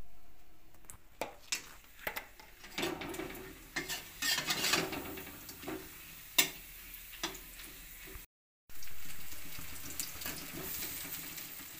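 Food frying in hot oil in an iron kadai: a sizzling hiss with the clicks and scrapes of a flat metal spatula stirring against the pan. The sizzle is loud at the start and fades. It cuts out briefly about eight seconds in, then comes back loud and fades again.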